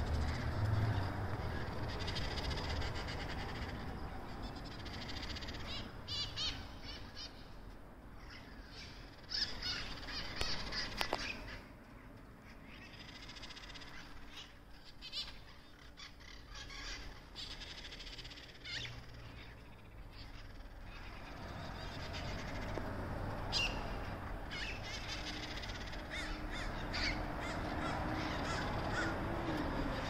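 A flock of parrots squawking, many birds calling over one another in clusters with thinner stretches between, over a steady low background rumble.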